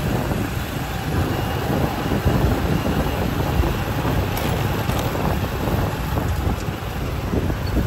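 Steady street traffic noise with wind buffeting the microphone in an uneven low rumble.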